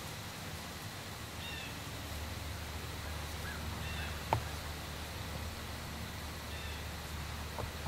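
A small bird chirping a short call that repeats about every two seconds over a steady low rumble of outdoor ambience. A sharp click about four seconds in and a fainter one near the end.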